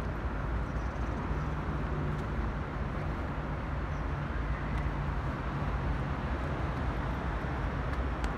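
Steady low rumble of distant road traffic, with a faint low hum running under it.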